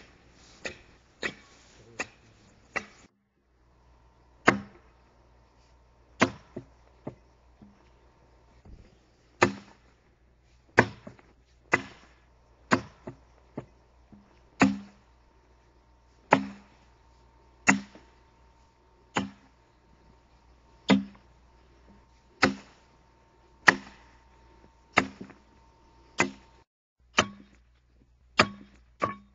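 Repeated axe blows biting into an oak log as a railroad tie is hewn by hand: sharp chops about one every second, some in quick pairs. The chops stop briefly about three seconds in.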